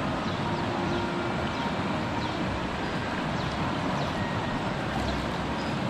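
Steady rushing of river water flowing over rocks, with faint short chirps over it.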